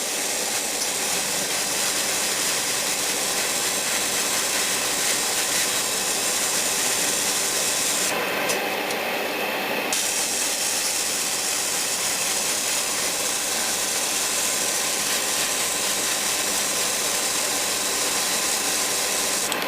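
Airbrush spraying: a steady hiss of compressed air and paint, over the hum of the air compressor. The spray cuts off for about two seconds partway through, then resumes.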